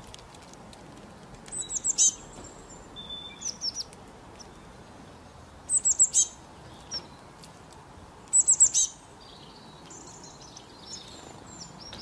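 Small songbird calling: three bursts of four or five quick, high, falling chirps, about two, six and nine seconds in, with fainter chirps in between. Under the calls is a soft, steady hiss.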